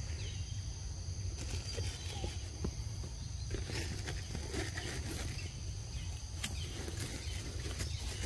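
Forest ambience: a steady high-pitched insect drone over a low rumble, with scattered short rustles and clicks.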